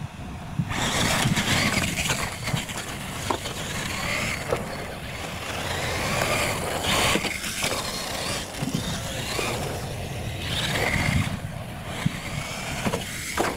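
Radio-controlled monster trucks racing on a dirt course. Their motors start about a second in and whine up and down in pitch with the throttle, over the hiss of tyres on loose dirt.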